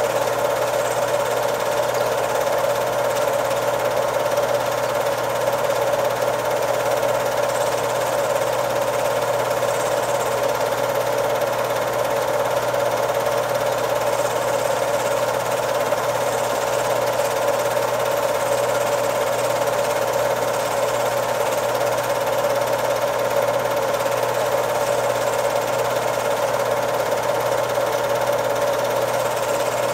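Film projector running: a steady, unchanging mechanical running noise from the motor and film transport, with a strong mid-pitched drone.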